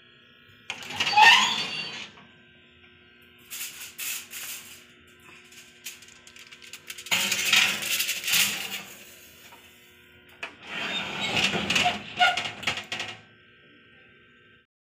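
Metal clanks and rattles from a gas oven's door and rack as a foil-lined baking tray is slid in, in four short bursts of clatter.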